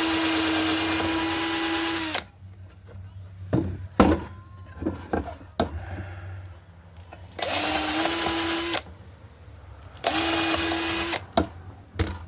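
Power drill run in three short bursts at a steady speed, working into pine boards, with sharp knocks from boards and tools being handled between the bursts.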